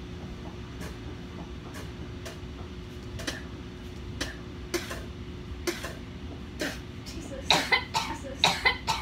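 A boy coughing and gagging after gulping a disgusting-flavoured soda: scattered short coughs, then a quick run of loud coughs near the end.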